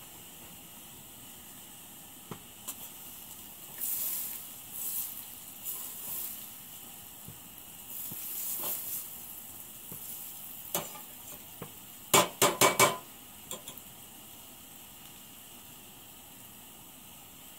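Food sizzling in a stainless steel frying pan on a propane camp stove, over the burner's steady hiss, with bursts of sizzling as ingredients go in. About twelve seconds in, a quick run of four sharp taps, like a utensil knocking on the pan or a cup.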